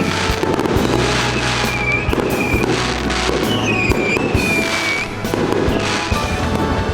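Fireworks going off in a public display, a run of bangs and crackles, with music playing over them.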